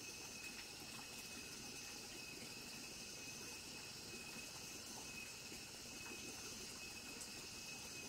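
Faint evening insect chorus: a steady high-pitched trilling over a low even hiss, with an occasional faint tick.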